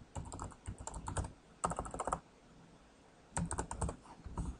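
Typing on a computer keyboard: two runs of quick keystrokes with a pause of about a second between them.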